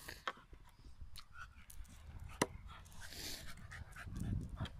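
Wooden plank scraping and knocking along tarmac as a dog pushes it, with one sharp knock about halfway through.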